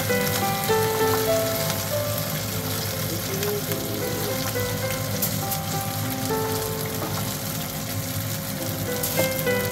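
Mirin-marinated flatfish fillets sizzling steadily in hot oil in a nonstick frying pan, under light background music.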